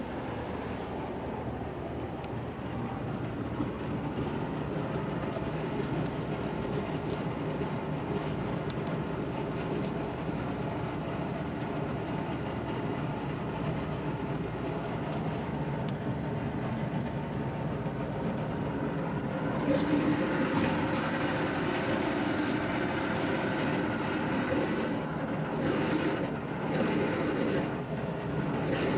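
Packaged air conditioning unit running steadily, compressors and fans on, a continuous mechanical hum and rush that gets louder and hissier about two-thirds of the way through. Its three-phase blower motor is wired to spin in reverse, leaving a high temperature split that the technician first takes for a slipping belt.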